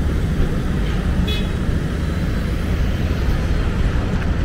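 Steady city street traffic noise, with a short high-pitched horn toot about a second in.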